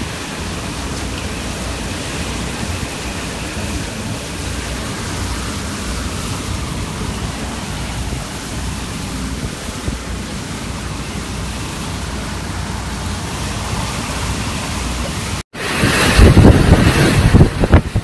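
Storm wind from Hurricane Maria, a steady rushing noise. After a sudden cut near the end, louder gusts buffet the microphone.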